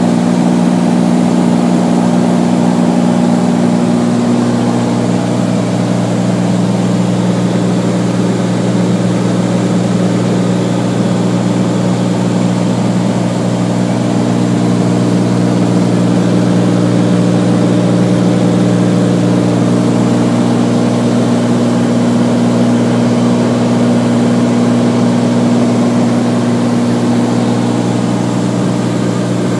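Beechcraft Bonanza's six-cylinder piston engine and propeller heard from inside the cockpit: a steady, loud drone with a few low tones that barely change.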